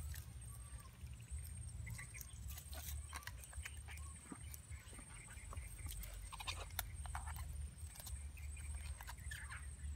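Scattered small clicks and rustles of hands tying up a mud crab with string in wet mud, over a steady low rumble. A faint high trill repeats about twice a second throughout.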